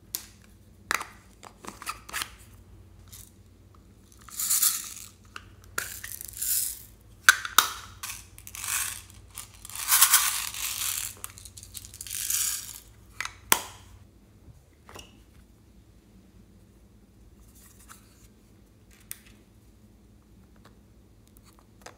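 Plastic cosmetic containers being handled and opened: sharp clicks of lids and caps, with several loud rasping scrapes of plastic in the middle. Faint clicks and scraping follow near the end.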